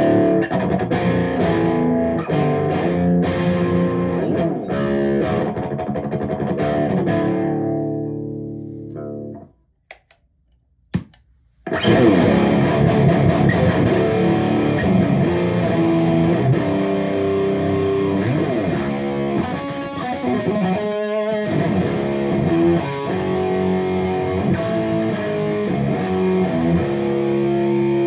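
Distorted electric guitar played through the Gremlin Machine Shop Firepower, riffing in chords. A chord rings out and fades about eight seconds in, there is a brief silence with a single click, and the playing starts again about twelve seconds in.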